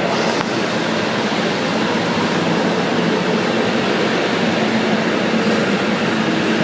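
Passenger train at a station platform, running with a steady noise and a faint low hum.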